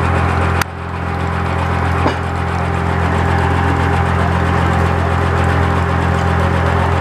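1930s-style sawmill running, its engine holding a steady note. A sharp crack about half a second in is followed by a brief dip in loudness, and a fainter click comes around two seconds in.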